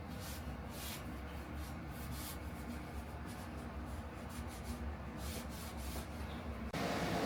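Irregular rustling and rubbing strokes over a steady low rumble, ending in an abrupt change of sound near the end.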